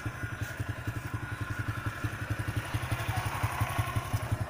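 An engine idling with a steady low chug, about eight beats a second. In the second half, wooden planks slide and scrape as they are pushed into the van's cargo area.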